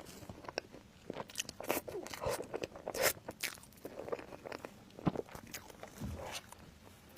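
Close-up eating sounds: crisp, crunchy bites followed by chewing, in irregular sharp crackles.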